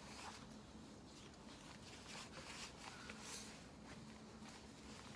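Faint rustling of a jacket and backpack straps as a backpack is shouldered and a cap is adjusted: soft swishes every second or so.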